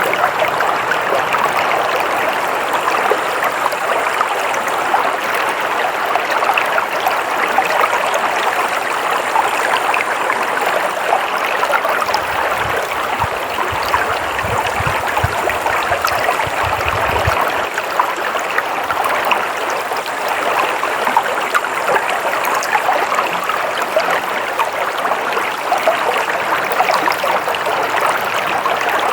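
Stream water flowing steadily. A low rumble joins in from about twelve to seventeen seconds in.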